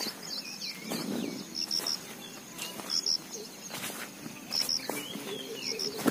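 Several wild birds calling in open countryside: short high chirping notes and falling whistles, with a lower repeated cooing that joins in the second half. Footsteps on grassy soil sound as irregular soft thuds underneath.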